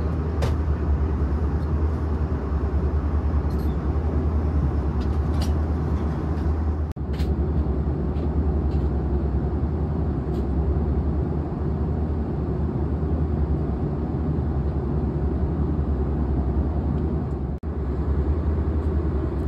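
Steady low drone inside the cabin of a Swiss Airbus A340-300 airliner, engine and airflow noise with most of its weight in the deep bass. It breaks off for an instant twice, about seven and about seventeen seconds in.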